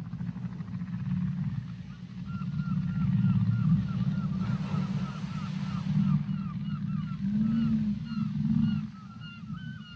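Whale calls recorded underwater: a continuous low rumbling drone with a few low moans, and from about two seconds in a quick run of short, repeated chirping calls.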